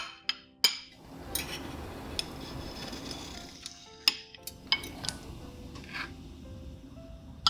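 Metal utensils clicking and clinking against a plate, several sharp strikes, with a stretch of scraping in the middle, over soft background music.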